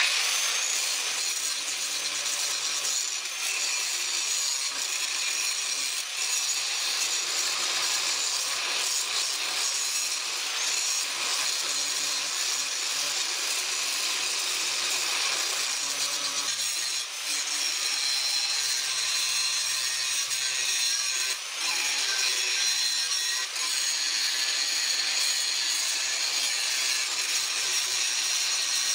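Angle grinder cutting into a steel wagon leaf spring clamped in a vise: a loud, steady, high-pitched grinding hiss that comes in suddenly and dips briefly a few times in the second half.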